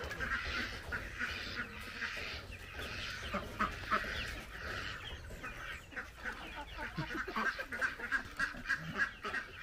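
A yard flock of chickens and ducks calling over one another: a steady chatter of many short, overlapping clucks and quacks.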